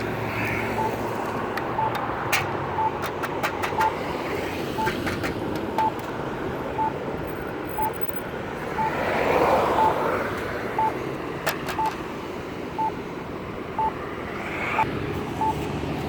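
Accessible pedestrian signal push button's locator tone: a short beep repeating about once a second. A car passes about halfway through, with steady traffic behind and a few sharp clicks.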